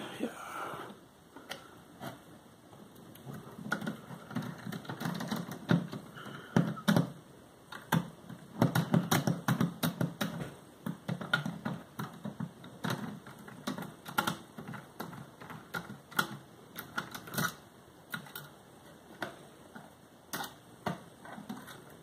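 Precision screwdriver working small screws out of a Zotac mini PC's metal chassis: irregular light clicks and scrapes with handling of the case, busiest from about eight to eleven seconds in.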